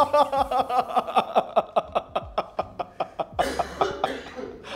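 Hearty male laughter: a long run of quick, rhythmic 'ha' pulses, about five a second, that dwindles after about three seconds into a breathy, wheezing exhale near the end.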